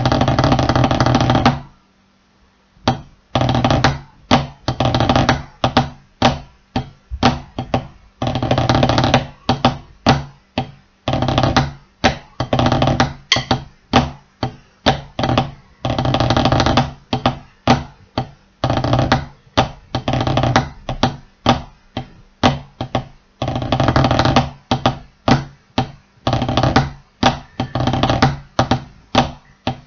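Wooden drumsticks on a rubber drum practice pad, playing a practice pattern: stretches of fast, continuous rolls alternate with groups of separate strokes. There is a short pause about two seconds in.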